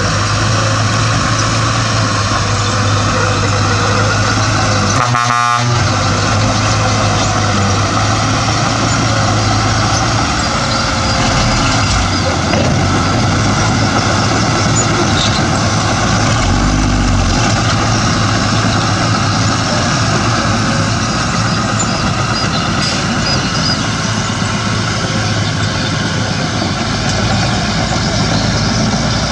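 Heavy diesel earthmoving machinery running steadily, with a brief break in the sound about five seconds in.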